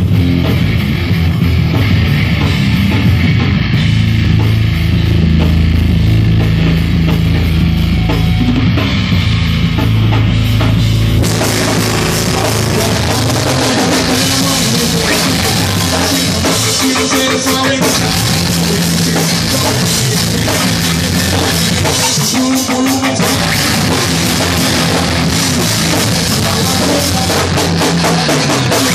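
Live rock band playing drums, bass and guitar, recorded loud. The sound is bass-heavy at first; about eleven seconds in, the drums and cymbals come in fully and the sound brightens.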